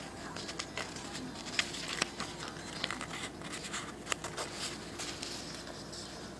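Origami paper rustling and crinkling, with irregular soft clicks, as a folded paper unit's flap is tucked into another unit's pocket.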